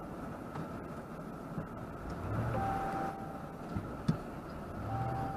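Steady low rumble inside a stopped car's cabin, with a thin single-pitch electronic tone that sounds for about a second near the middle and again near the end.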